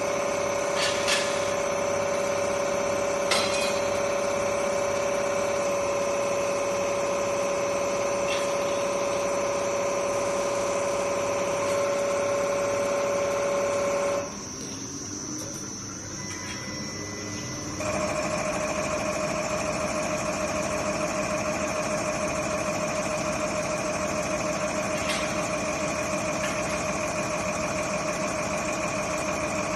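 Common rail injector test bench running: its drive motor and high-pressure pump make a steady machine hum with a whine on top, and two sharp clicks come in the first few seconds. About 14 seconds in, the sound drops quieter with a falling pitch for a few seconds as the bench changes test steps, from warm-up at 100 MPa rail pressure to the full-load delivery test at 160 MPa. It then picks up again at a slightly different pitch.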